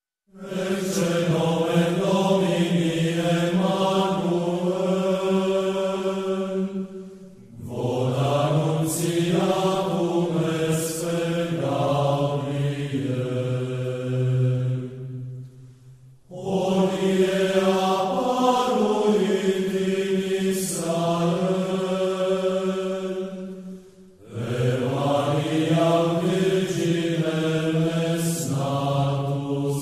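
Low male voices chanting a carol in long held phrases of about eight seconds each, with short breath pauses between them.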